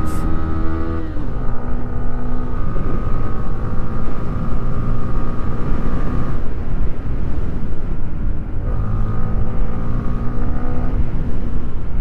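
Yamaha Sniper 155 R's 155 cc liquid-cooled single-cylinder engine pulling under acceleration while being ridden, over a low wind rumble. The engine note drops about a second in and again near the end as the rider shifts or rolls off, and climbs in between.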